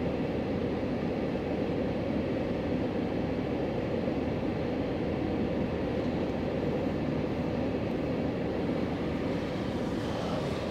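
2021 Chevrolet Suburban Z71 idling in park, heard from inside the cabin as a steady low hum.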